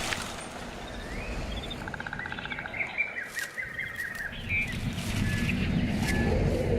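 Birds chirping, with short sliding chirps, a rapid trill and brief whistled notes, over a steady low background.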